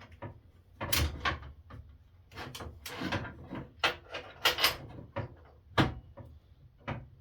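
Metal miter gauge and its stop being handled and slid in a table saw's miter slot: a run of irregular scrapes, clicks and clunks.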